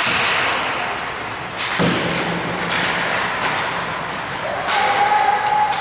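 Ice hockey play along the boards: sharp knocks of sticks and puck, with a heavier thud against the boards about two seconds in, over the hiss of skates on ice in an echoing arena. A steady held tone starts near the end.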